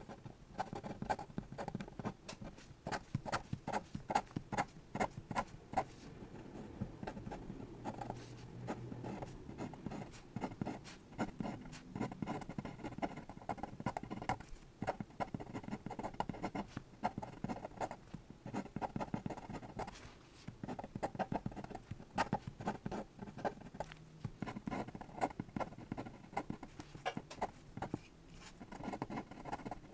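Sakura Pigma Micron fineliner pen drawing on paper: a dense run of quick taps and scratches as the nib dashes out many short strokes, with a few brief pauses.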